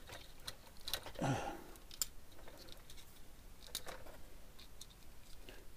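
LEGO plastic pieces clicking and tapping as they are handled and pried at by hand, a few scattered clicks. About a second in there is a short falling vocal sound, like a grunt.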